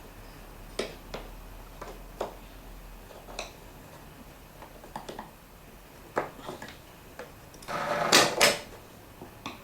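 Light clicks and taps of a flat screwdriver working a dishwasher door hinge out of its clip, with two louder knocks close together about eight seconds in.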